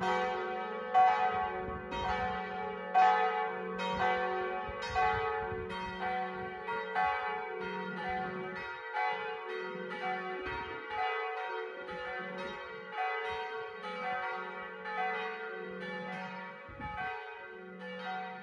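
Church bells pealing: a steady run of struck strokes, each ringing on, that slowly fades toward the end.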